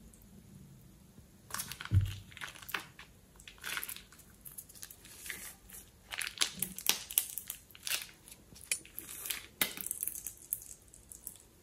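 Clear plastic piping bag crinkling and crackling as a hand squeezes and handles it, a quick run of sharp crackles starting about a second and a half in. There is a low thump about two seconds in.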